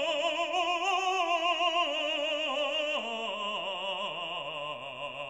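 Background music: operatic singing, a single voice holding long notes with wide vibrato that drop to a lower pitch about three seconds in.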